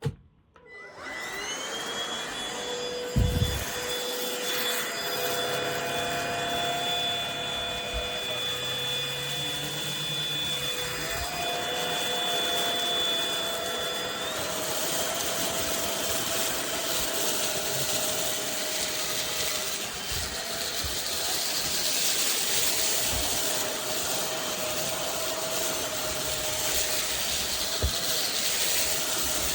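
Cordless stick vacuum cleaner switched on with a click, its motor spinning up with a rising whine, then running steadily with a high whine over the hiss of rushing air. A thump comes about three seconds in, and the whine shifts in pitch about halfway through.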